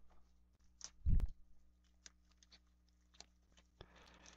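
Crinkling and crackling of clear plastic wrap being peeled off a box of trading cards, with one dull low thump about a second in.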